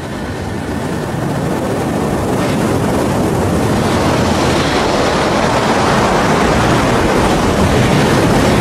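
Ocean surf: a steady rushing wash of breaking waves that grows slowly louder.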